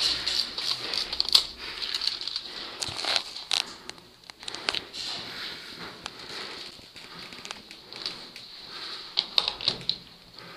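Irregular crackling, scuffing and clicking of someone moving over a rubble-strewn floor, with gear rustling close to the microphone.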